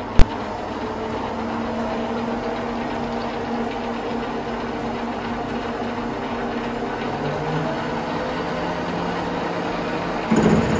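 Bernardo Profi 550 WQV mini metal lathe running with a steady mechanical hum while turning steel. A sharp click comes just after the start, and the sound steps up louder about ten seconds in.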